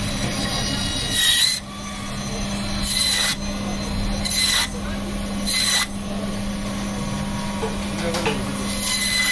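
Electric band saw running with a steady hum while its blade cuts through a large gojal fish, with five short spells of loud cutting noise as the blade goes through scales, flesh and bone.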